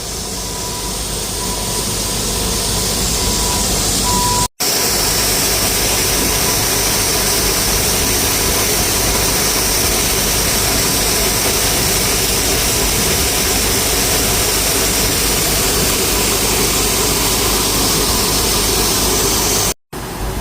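Combine harvester running close by, a loud steady machine noise with a hiss. A faint steady whine sits under it in the first few seconds. The sound breaks off for a moment about four and a half seconds in and again near the end.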